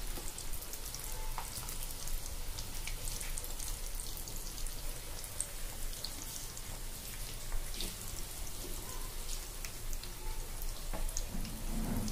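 Batter-coated chickpeas deep-frying in hot oil: a steady sizzle full of small, sharp crackles and pops as handfuls are dropped into the oil.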